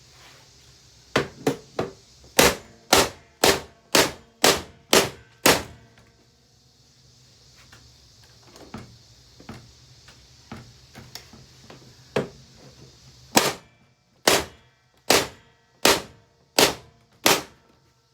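Hammer blows on a Hoover vacuum cleaner being smashed apart: a run of about ten sharp strikes, roughly two a second, then a few lighter knocks, then six more heavy strikes near the end.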